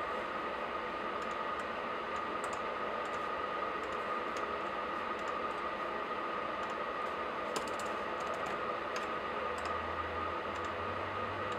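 Laptop keyboard typing in irregular bursts of keystrokes with pauses between them, over a steady background hiss with a faint hum.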